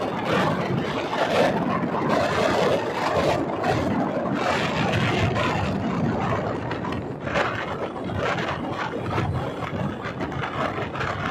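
Steady road noise from riding along a street, with wind rushing and buffeting on the phone's microphone.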